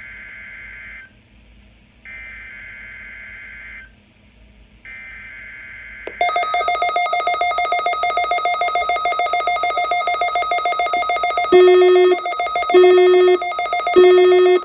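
NOAA Weather Radio SAME data header: three bursts of warbling digital data tones, each under two seconds with about a second between them, marking the start of the weekly alarm test. About six seconds in, a much louder electronic alert tone starts, fluttering rapidly, and near the end three short, lower beeps sound over it.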